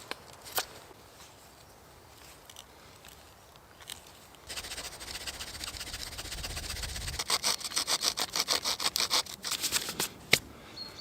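Wood being worked by hand with rapid back-and-forth rubbing strokes. The sound builds from about halfway in into a fast, even rhythm of roughly six strokes a second, then ends with a sharp click.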